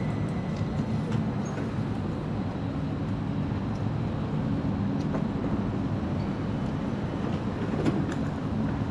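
Steady low hum and rumble of an electric commuter train (a Stadler FLIRT Sm5 unit) standing at an underground station platform, with a few faint clicks.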